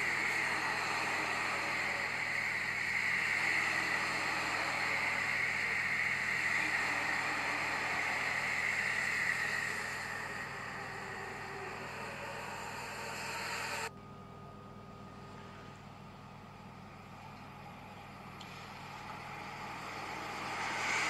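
Electric commuter train, a JR E531 series, running past the platform at speed with a loud, steady rush of wheels on rail that eases off after about ten seconds. After a sudden cut the sound is quieter, then it swells again near the end as another train approaches.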